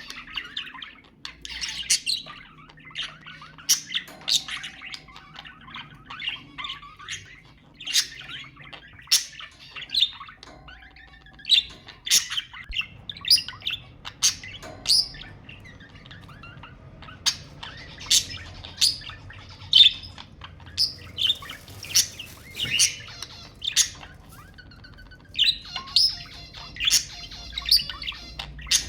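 Budgerigars chirping and chattering, with sharp high chirps and squawks coming about once or twice a second over a steady warbling background.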